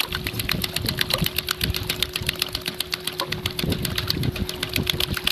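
Squid-fishing rod being shaken in quick short taps (tataki jigging) to make the egi lure dart, giving a fast, even rattle of about a dozen clicks a second. A steady low hum runs beneath.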